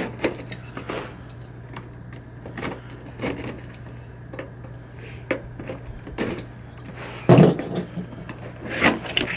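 Packing tape being peeled and torn off a large cardboard box, with irregular scrapes, rustles and knocks as the box is handled; the loudest knock comes about seven seconds in. A steady low hum runs underneath.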